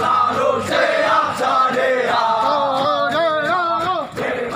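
A group of male soldiers singing a military running cadence together in unison, many voices chanting one melody.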